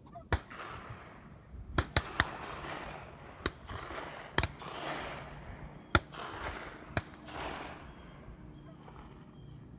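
Distant shotgun shots fired during a driven bird hunt: about eight reports at irregular intervals, some in quick succession, each followed by a rolling echo across the open field.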